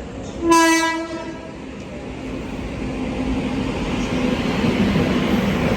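Locomotive horn of an arriving express train, one short blast about half a second in, followed by the rumble of the train drawing into the platform, growing steadily louder.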